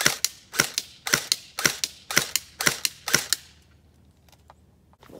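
Game Face GF76 electric airsoft gun firing single shots in semi-auto, seven sharp double clicks at about two a second, then stopping a little past the middle.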